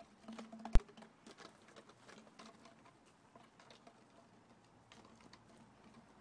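Faint scattered light taps and scuffs, with one sharp click about a second in: a kitten's paws and an empty plastic water bottle knocking about on gravel.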